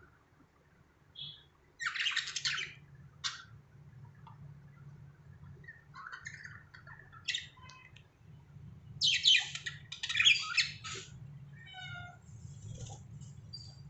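Budgerigars chattering and squawking in short irregular bursts, loudest about two seconds in and again from about nine to eleven seconds, over a faint steady low hum.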